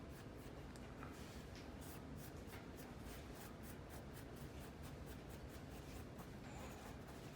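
Faint scratching and rubbing on a paper towel, many small scrapes in quick succession, as wet strawberry seeds are pushed across it.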